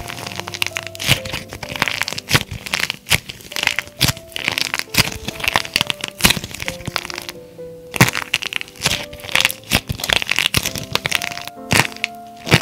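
Dried plaster clay shell cracking and crumbling as it is squeezed and bent by hand: a dense run of crisp cracks with a brief pause a little past halfway. Piano background music plays underneath.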